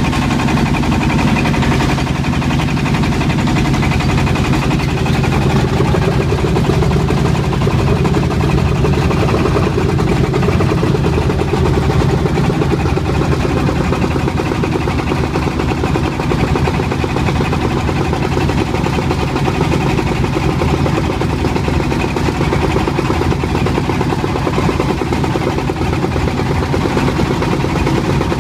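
Boat engine running steadily under way, a low continuous drone, with the hiss of rain and choppy sea beneath it.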